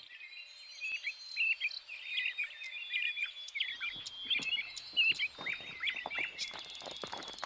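Small birds chirping in many short, quick calls. From about halfway in, the hooves of a horse and a mule clop and knock irregularly on the stony creek bed.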